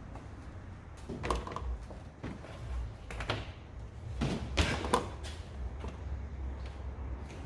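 A few irregular knocks and clunks of parts and tools being handled while an engine is being torn down, the loudest cluster about halfway through, over a low steady hum.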